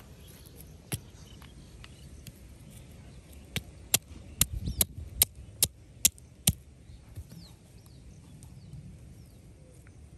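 Sharp knocks of a hand-held piece of brick striking down on another brick, crushing something small laid on top of it: one knock about a second in, then a quick run of about eight, some with a crunch, between about three and a half and six and a half seconds in.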